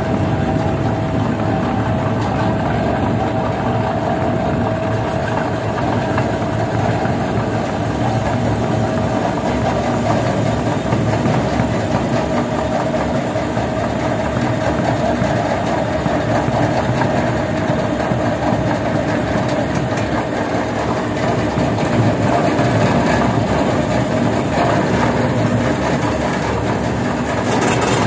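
Non-woven fabric roll cutting machine running steadily, its motor turning the mounted roll while it cuts to a set size.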